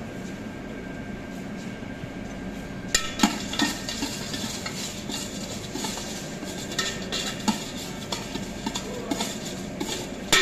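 Jhalmuri being mixed in a stainless-steel tin: puffed rice and other ingredients rattling and scraping against the metal. It starts about three seconds in with a few sharp knocks, then carries on as a dense rattle.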